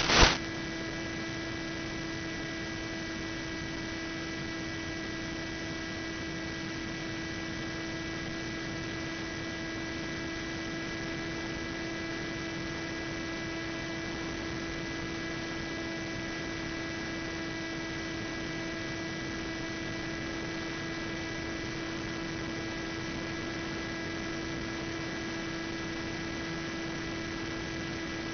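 Steady electrical hum and hiss: one constant low tone with a few fainter, higher whines above it, unchanging throughout. A brief loud burst of static at the very start.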